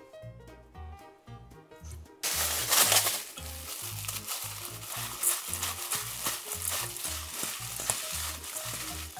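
A hand in a disposable plastic glove tossing shredded green onions with seasoning in a stainless steel bowl: a dense rustling, crinkling noise that starts suddenly about two seconds in and is loudest just after it begins. Background music with a steady bass beat runs underneath.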